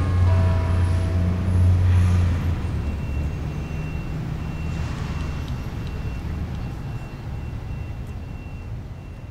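Low rumble of road traffic, loudest in the first couple of seconds, then slowly fading out.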